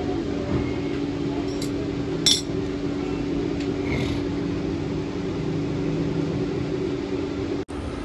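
A steady electric motor hum with a few light metallic clinks, the sharpest about two seconds in; the hum cuts off suddenly near the end.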